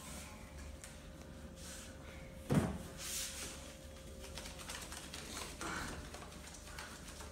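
Massage hands rubbing over skin and clothing in soft swishes, with one dull thump about two and a half seconds in.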